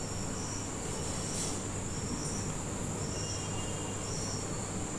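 Onion and ginger-garlic paste frying in oil in a kadai as it is stirred with a spoon, a faint even sizzle. Over it runs a steady high whine with a short high chirp about once a second.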